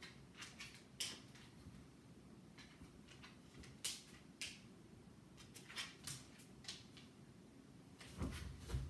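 Faint scattered clicks and taps of dog claws and footsteps on a hardwood floor, with a heavier low thump and a few clicks near the end.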